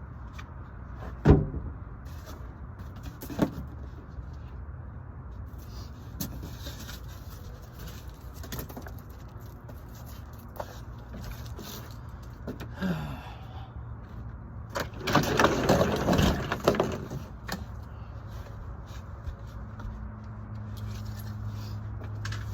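Plywood subfloor boards being handled and fitted on a van floor: scattered knocks, the sharpest just over a second in, and a couple of seconds of scraping and rustling about fifteen seconds in, over a steady low hum.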